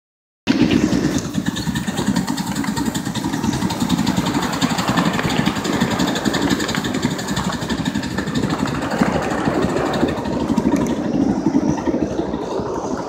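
Allen 2-6-0 Mogul 7½-inch gauge live steam locomotive and its riding cars running along the track, a steady, loud rumble that starts abruptly about half a second in.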